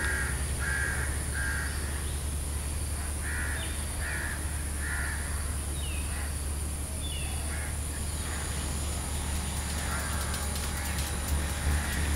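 A crow cawing in two short series of harsh calls, each call about two-thirds of a second apart. The first series comes right at the start and the second around three to five seconds in, over a steady low rumble.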